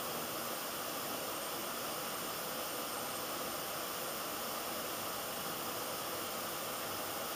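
Steady, even hiss of background room noise, with no other event.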